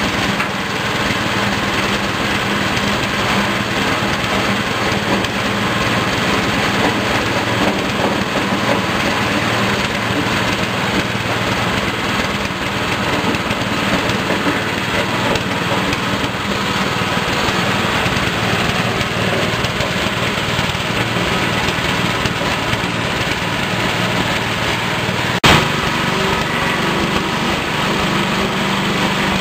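Small single-cylinder petrol engine running steadily at speed, driving a foam and fabric shredding machine that is chopping foam into crumbs. A single sharp knock about 25 seconds in.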